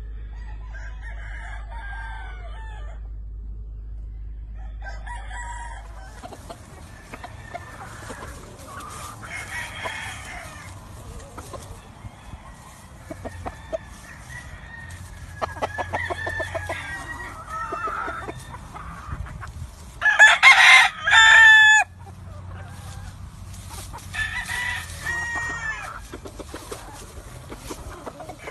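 Gamefowl roosters and hens clucking and calling, with one loud rooster crow about two-thirds of the way through.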